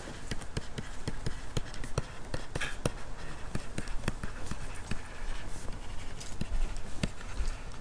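A stylus tip tapping and ticking against a tablet screen while words are handwritten: irregular small clicks, a few a second.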